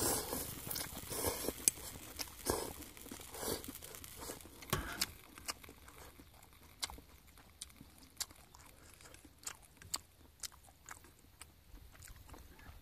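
Wooden chopsticks clicking and scraping against a small camping pot while stirring noodles: irregular light taps and knocks, denser and louder in the first few seconds, then sparse.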